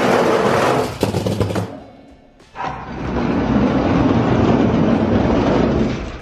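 Diecast monster trucks rolling fast down a plastic drag track, a rattling rumble with small clicks that fades out after under two seconds. From about two and a half seconds in, a longer, duller steady rumble takes over and runs on as the trucks come off the track into the arena.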